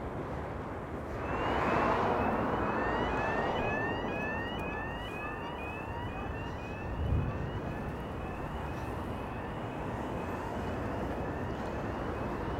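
A rapid string of short rising electronic chirps, about three a second, starting about a second in and fading toward the end, over steady street traffic noise that swells as a vehicle passes early on.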